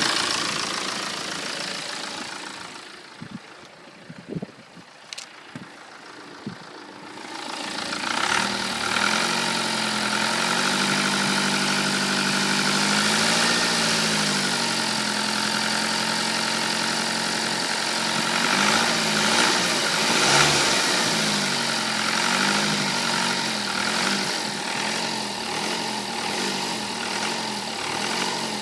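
A BMW 118d's four-cylinder N47 diesel engine running, with the noise the owner suspects is the model's known timing-chain defect, a chain or abnormal metallic noise. The sound drops for a few seconds with a few sharp clicks, then comes back loud about eight seconds in, the engine speed rising and falling, about once a second near the end.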